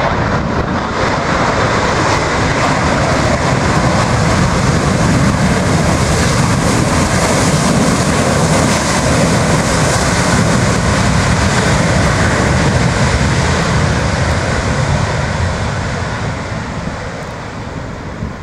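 Jet airliner passing close by, a loud rushing engine noise that builds over the first few seconds, holds, then fades over the last few seconds.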